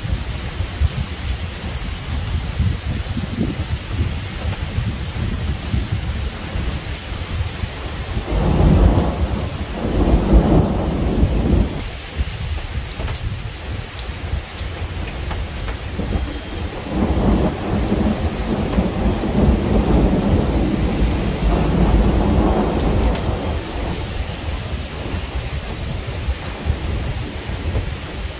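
Steady rain falling through a thunderstorm, with thunder rumbling twice: a rumble about eight seconds in lasting a few seconds, and a longer rolling rumble from about seventeen to twenty-three seconds in.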